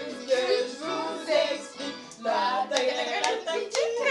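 A group singing along in French to a karaoke backing track, with several sharp hand claps in the second half.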